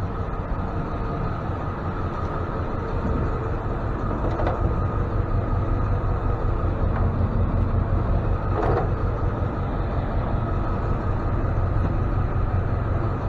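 Tow truck engine idling with a steady low rumble and a faint steady whine, with a couple of brief faint knocks.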